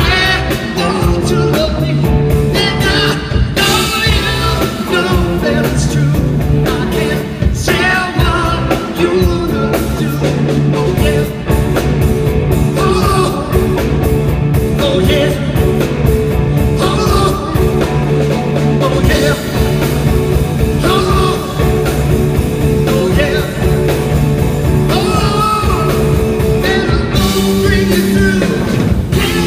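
Rock band playing live, full band with a steady beat and a melodic lead line wavering over the top.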